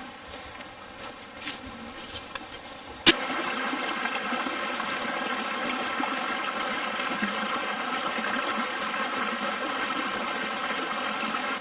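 A few light clicks, then, after a sharp click about three seconds in, river water rushing and flowing steadily until it cuts off abruptly.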